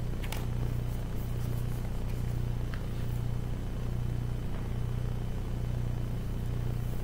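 Steady low hum, with a few faint clicks and rustles as a sheet of paper and the pages of a Bible are handled.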